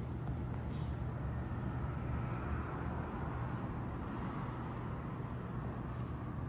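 Road traffic heard in the open: a steady low rumble with a vehicle going by, its noise swelling and fading through the middle.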